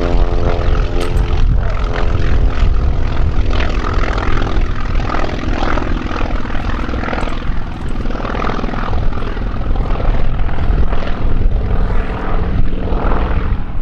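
Engine of a single-engine WWII radial-engine warplane climbing out after takeoff, a loud steady drone with a clear pitched tone that fades after about nine seconds into a rougher rumble.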